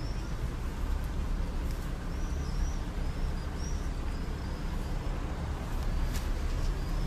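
Street ambience: a steady low rumble, with a small bird giving short high chirps several times.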